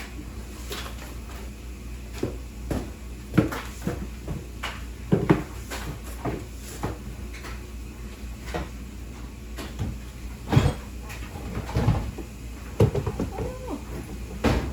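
Irregular knocks, clicks and bumps of household things being handled, in the manner of cupboard doors and objects being opened, closed and set down, with a few louder knocks about three, five and ten seconds in.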